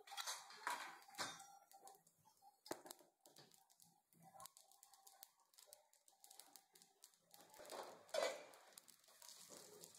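Mustard seeds, cumin and urad dal frying in a little hot oil in a steel pan, a tempering beginning to splutter: faint, irregular crackling and popping, with a few louder pops near the start and about eight seconds in.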